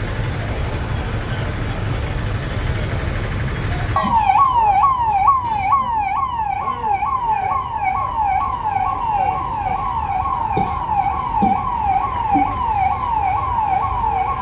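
Traffic and engine rumble, then about four seconds in an electronic vehicle siren starts. It yelps in a fast repeating sweep about twice a second, typical of a police escort vehicle in a VIP convoy.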